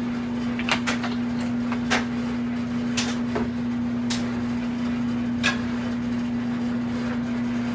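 A steady electrical hum with a few scattered light knocks and clinks of kitchen handling, as a nonstick skillet with cold oil is shifted on an electric coil burner.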